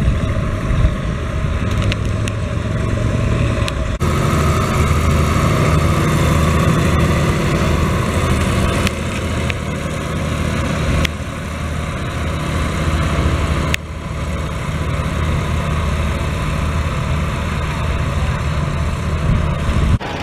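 Schlüter Profi Trac 3500 TVL's turbocharged, intercooled 320 hp MAN diesel engine running steadily while pulling a disc harrow. The sound changes abruptly about four seconds in and twice more later.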